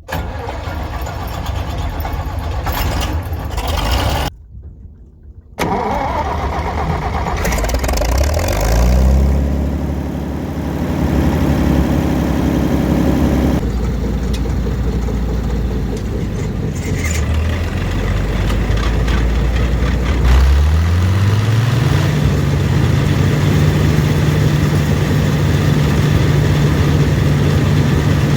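International 403 combine running, with a brief break about four seconds in. Its engine speed rises about eight seconds in, and again about twenty seconds in, then holds steady at the higher speed.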